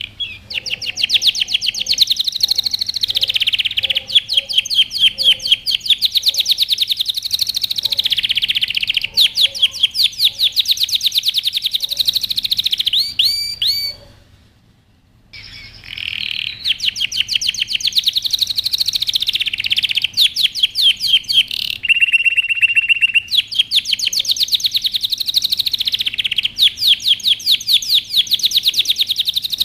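Male domestic canary in breeding condition singing: long runs of fast trills and rolls, broken by a pause of about a second and a half midway before the song resumes, with a short held whistled note about two-thirds through.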